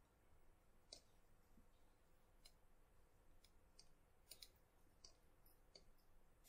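Faint computer mouse clicks, about ten of them at irregular intervals, over near silence.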